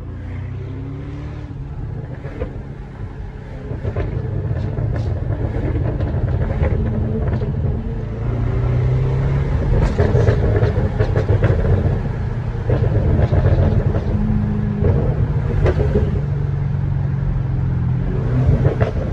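2014 Camaro SS 6.2-litre V8 running through its exhaust, the revs rising and falling. Many sharp pops and crackles scatter through it, the off-throttle burble of a custom tune. It gets louder about four seconds in.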